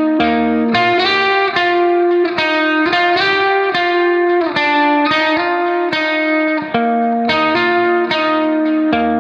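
Background music: a plucked guitar playing a steady run of notes, a new note every fraction of a second.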